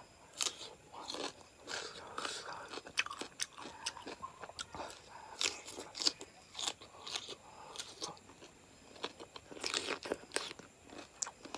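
A person biting into and chewing a lime wedge: many small, irregular mouth clicks and smacks.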